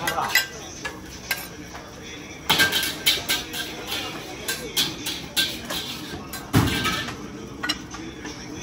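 Metal spatula and ladle clanking and scraping against a steel wok as fried rice is stir-fried and served, in irregular sharp clinks with one heavier knock about two-thirds of the way in, over background chatter.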